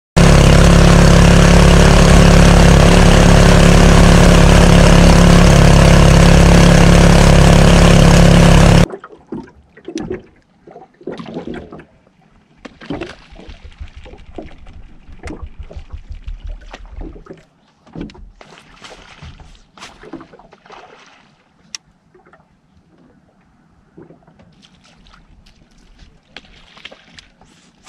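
A boat's motor running, loud and steady, that cuts off abruptly about nine seconds in. After that comes quiet, irregular water lapping and splashing, with light knocks against the boat's hull.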